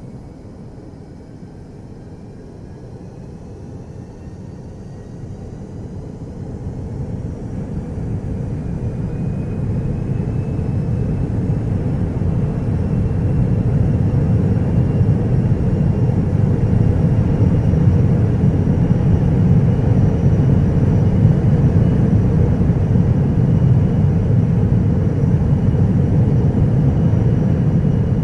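Jet fighter's turbine engine spooling up: a rumble that builds over the first dozen seconds and then holds steady, with a faint whine slowly climbing in pitch.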